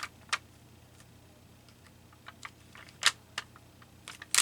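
Scattered sharp clicks and taps of small craft pieces being handled and set down on a tabletop: two near the start, a louder one about three seconds in, and another near the end.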